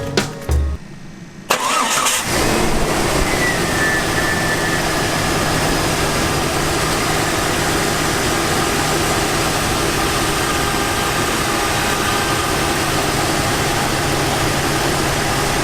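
2001 Jeep Cherokee XJ's 4.0-litre inline-six starting about a second and a half in, then idling steadily. Its worn fan pulley bearing has just been replaced, and it now runs nice and quiet, with no knock.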